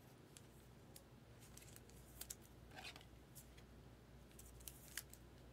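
Faint plastic clicks and rustles from a rigid clear top loader being handled as a trading card is slid into it: a few small ticks, a couple a little past two seconds in and a sharper one near the end.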